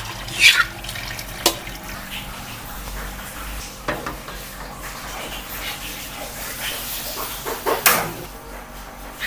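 Tap water running into a stainless-steel sink, with sharp metal knocks as the wok and colander are handled, and a few sharp clicks near the end as the gas stove burner is lit.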